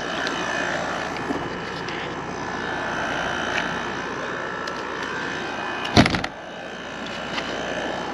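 Window air-conditioning unit running with a steady fan hum and faint whine. About six seconds in, a single loud bang as the truck camper shell's rear hatch is shut, after which the hum is quieter.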